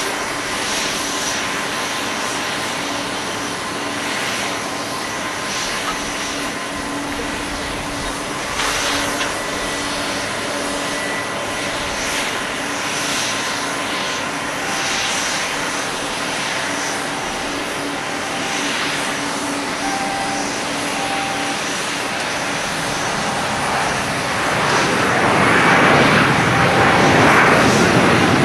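Airbus A320-200 airliner's jet engines on landing approach and touchdown: a steady rushing whine that swells to a louder rush for the last few seconds as the jet rolls out along the runway.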